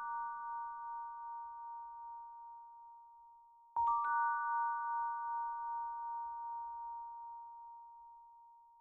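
Bell-like mallet percussion in a film score: a few clear notes near the same pitch struck almost together about four seconds in, ringing and fading slowly, over the fading tail of an earlier strike.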